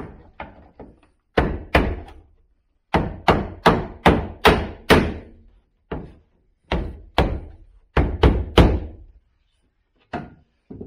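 Mallet knocking a wooden trim piece of a window surround into place, about sixteen dull blows in three quick runs with short pauses between.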